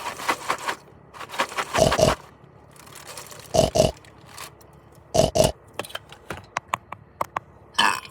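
Close-up mukbang eating sounds: crunchy snacks being bitten and chewed near the microphone, with many sharp mouth clicks and three pairs of loud short puffs or grunts spaced a second and a half apart.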